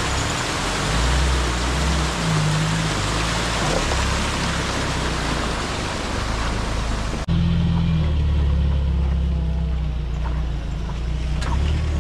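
Mahindra CJ3B jeep's engine running at low revs as it crawls over a rough off-road track, over a steady rushing hiss of stream water. About seven seconds in the sound cuts abruptly: the engine goes on and the rushing hiss is mostly gone, with a few faint clicks.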